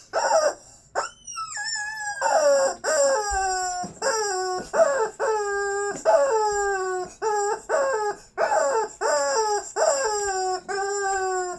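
Squeaky dog toy squeezed over and over, giving a quick series of pitched squeaks, each dropping in pitch as it is released, with one higher rising squeal about a second in.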